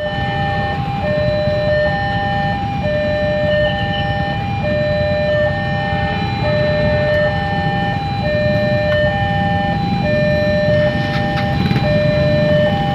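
Railway level-crossing warning alarm sounding: an electronic alarm swapping steadily between two tones, each a little over half a second long. It plays over a steady low rumble.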